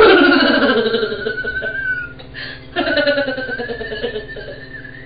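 A woman's long, wordless vocalizing while sleepwalking: two drawn-out sounds, the first sliding down in pitch over about two seconds, the second starting near the three-second mark.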